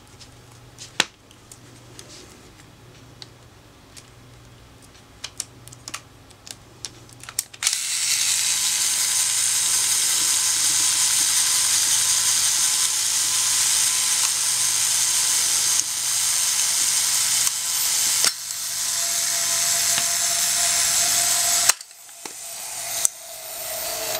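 Nikon F3 camera with MD-4 motor drive: a few scattered mechanical clicks, then the motor drive starts a loud, steady high-pitched whir that runs for about fourteen seconds before cutting off suddenly, followed by a couple more clicks and the whir starting up again at the very end.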